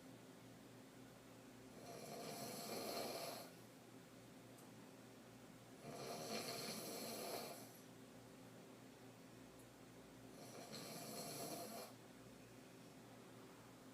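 A woman snoring in deep sleep, on her back with her mouth open: a throat snore that rasps on each breath. Three slow snores come about four seconds apart, each lasting about a second and a half, with quiet between them.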